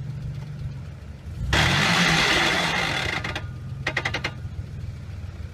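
Off-road 4x4's engine idling, then revved once about a second and a half in with a loud rushing noise, rising then falling, while no drive reaches the front or rear wheels. A short burst of rapid mechanical rattling follows around the four-second mark.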